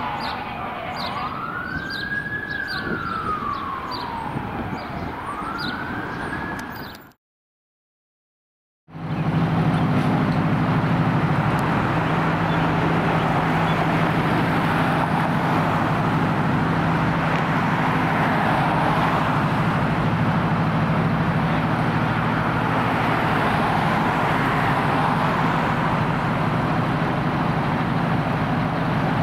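Fire engine siren wailing, rising and falling in slow sweeps; it cuts off about 7 seconds in. After a short gap, a fire engine's diesel engine runs steadily with a low rumble as the truck pulls out of the station.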